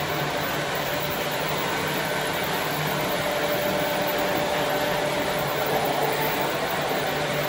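Model trains running on the layout's track: a steady rolling rumble and motor hum that grows louder as a model diesel locomotive and its freight cars approach and pass close by, loudest about six seconds in.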